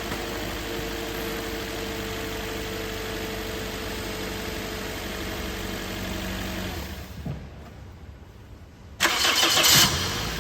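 Freshly overhauled Toyota 1ZZ-FE 1.8-litre four-cylinder engine idling steadily; about seven seconds in it goes quiet, and near the end a loud noisy burst of about a second marks it being started again, after which it settles back to idle.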